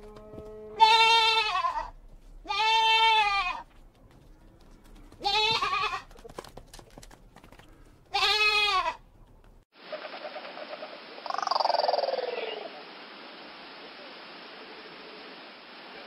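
Goat bleating four times in the first half, each bleat about a second long with a wavering pitch. After that the sound changes to a steady hiss, with one falling call a couple of seconds later.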